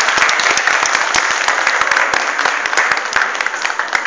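Audience applauding, dense clapping that thins out slightly near the end.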